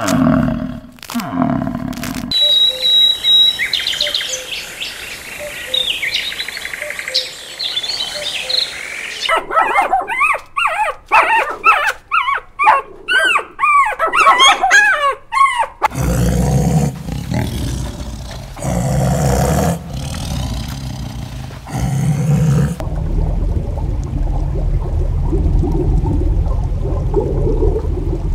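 A string of animal sounds: a few seconds of high chirps, then a puppy whining and whimpering in quick, high cries that rise and fall for several seconds, then a low rumbling background.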